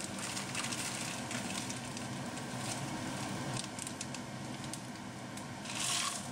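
Frozen peas rattling with many small clicks as they pour from a bag into a plastic measuring cup, over the steady bubbling of a pot boiling on a gas hob. Near the end the cupful is tipped into the boiling water with a short hiss.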